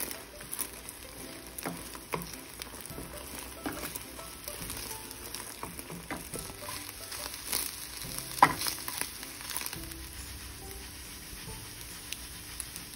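Scrambled eggs sizzling in a buttered frying pan as they are stirred and pushed around with a spatula. Scattered scrapes and taps of the spatula against the pan sound over the steady sizzle, the loudest about eight and a half seconds in.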